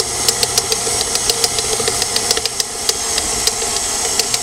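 KitchenAid stand mixer running, its flat beater churning a ground beef mixture in the metal bowl, with a steady motor hum and rapid, irregular clicks and knocks.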